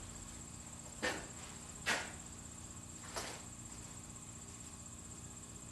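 Three short knocks about a second apart, the second the loudest, over a faint steady hum and a thin high whine.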